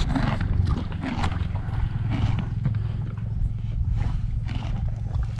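Horses close to the microphone eating fruit, with irregular crunching over a dense low rumble.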